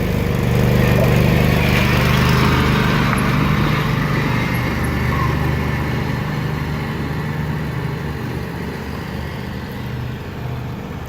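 Lawnmower engines racing in a drag race, loudest about a second or two in and then fading gradually as the mowers pull away.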